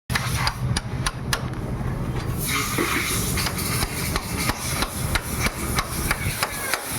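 Hammer striking metal in quick, even blows, about three a second, over a steady low hum, with a short hiss about two and a half seconds in.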